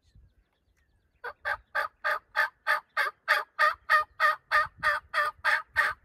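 A long, evenly paced series of turkey yelps: about sixteen loud, rasping notes at roughly three a second, starting a little over a second in.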